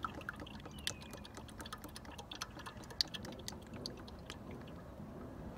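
Motor oil pouring from a plastic jug through a funnel into the engine's filler neck: a faint trickle with many irregular small clicks, one sharper click about three seconds in.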